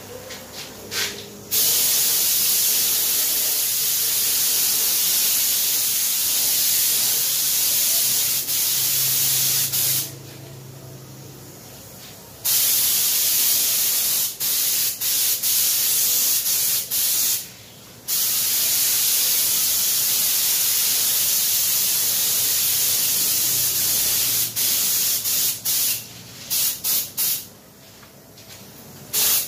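Compressed-air gravity-feed spray gun spraying paint, a loud hiss in long passes of several seconds, each cut off when the trigger is released. Near the end it goes into a run of short bursts.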